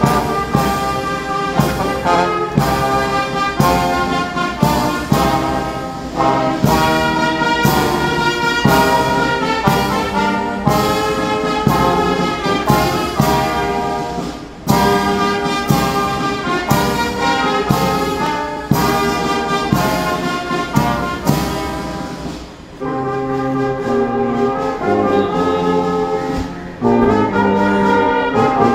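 Brass band music with a steady beat that gives way to longer, held chords about 23 seconds in.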